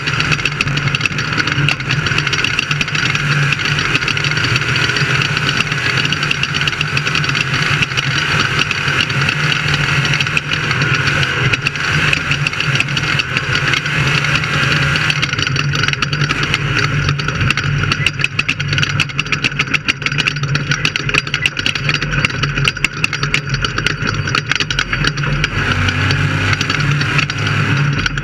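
Off-road race vehicle's engine running steadily at a loud, even level, with a rapid clatter over it.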